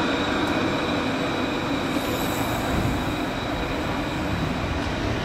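Alstom Citadis tram running on street rails: continuous rolling noise with a steady high-pitched whine or squeal from the wheels and drive.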